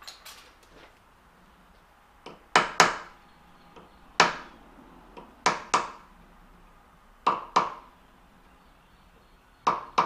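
Sharp taps of a small hammer on a steel roller held in a lathe's four-jaw chuck, mostly in pairs about a second and a half apart, each with a short metallic ring: the part is being tapped true in the chuck against a dial indicator reading in thousandths.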